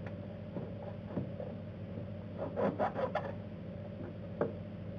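Rubbing, scraping and clicking of a rubber degas hose being worked off its fitting on the coolant reservoir by gloved hands: a cluster of scrapes about halfway through and one click near the end, over a steady low hum.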